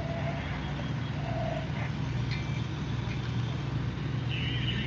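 Fire engine's diesel engine running steadily as a low drone while pumping water to a charged hose line.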